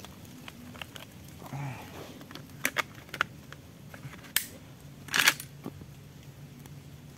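Metallic clicks of .410 shotgun shells being loaded one after another into a Saiga-410 magazine, with a louder clack just after five seconds in.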